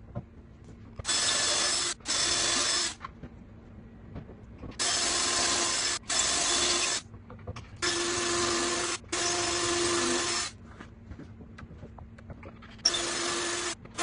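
Cordless drill boring pocket holes through a pocket-hole jig into the edge of a wooden panel. It runs at full speed in short runs of about a second, mostly in pairs with a brief pause between, four times over.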